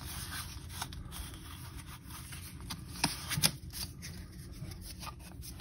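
A stack of trading cards handled and slid against one another in the hands, a soft papery rustle with a few light clicks of card edges about three seconds in.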